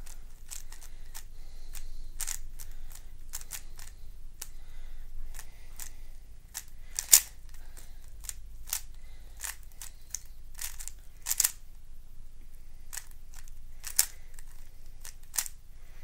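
A 3x3 plastic speedcube being turned rapidly through a solve: quick, irregular clicking and clacking of its layers, with a few sharper clacks scattered through.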